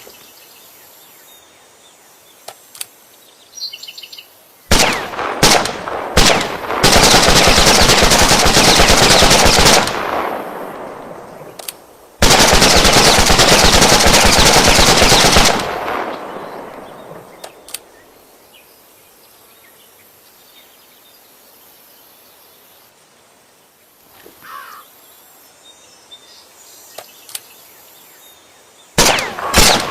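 AK-47 assault rifle firing on full automatic: a few short bursts about five seconds in, then two long bursts of about three seconds each, each fading out in an echoing tail. A few single shots follow, and another burst starts near the end.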